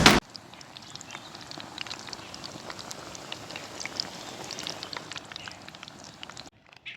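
Spinach pakoras deep-frying in hot oil: a steady sizzle full of small crackling pops. Drum-beat music cuts off right at the start.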